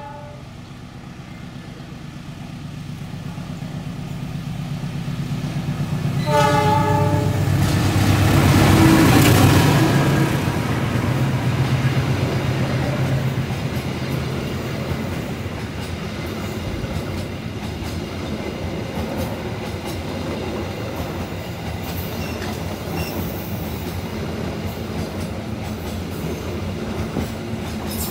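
A locomotive-hauled crane train approaches and passes. It sounds a short horn blast about six seconds in, and its engine drone is loudest around nine seconds. The wagons then roll past with wheels clacking over the rail joints.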